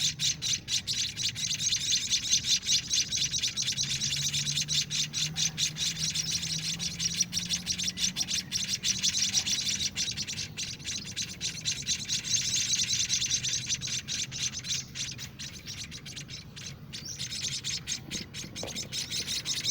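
Seven-day-old munia (emprit kaji) nestlings giving rapid, continuous high begging chirps while being hand-fed. A faint low hum runs underneath.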